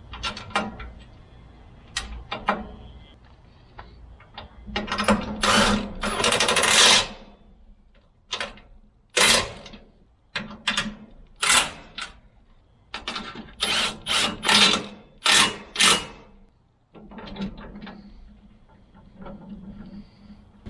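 Metal rack parts and hand tools clicking and clattering in a run of short, sharp strokes, with a longer, louder rattling stretch about five seconds in. This is hardware being fitted and tightened during assembly of a metal backpack-blower rack.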